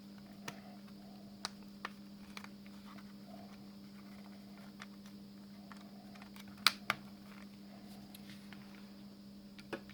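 Small plastic clicks and taps of headphone parts being handled and fitted back into the casing, scattered through, with two louder clicks close together about two-thirds of the way in, over a steady low hum.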